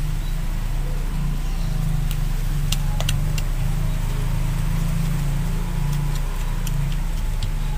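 A steady low motor hum, like an engine running, with a few faint ticks and scrapes of a small hand trowel working garden soil.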